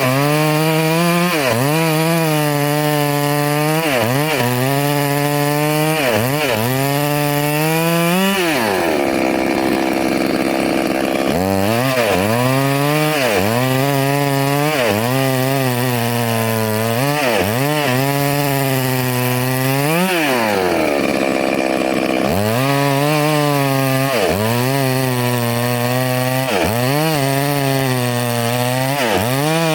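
Two-stroke chainsaw running at high revs and cutting wood, its engine pitch dipping and recovering about once a second as the chain takes the load. It drops back to idle about a third of the way in and again about two-thirds in, then revs up for the next cut.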